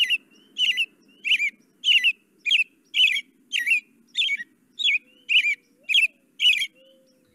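A played-back recording of an American robin singing: a steady run of short, warbled caroling phrases, about two a second, that stops about a second before the end.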